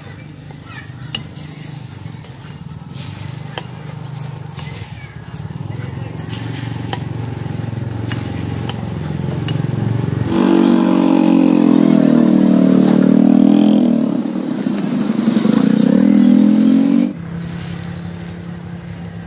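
A motorcycle engine running, its pitch rising slowly at first, then much louder and wavering for about seven seconds before cutting off suddenly.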